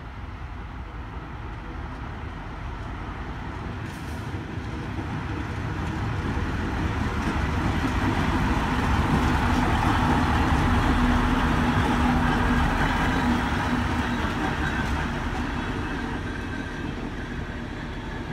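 Diesel locomotive passing close by: the engine's hum and the rumble of the train grow louder, peak about ten seconds in, then fade as it moves away.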